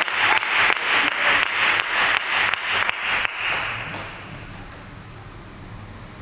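Spectators clapping after a table tennis point, many quick claps that fade out about three and a half seconds in, leaving only steady hall tone.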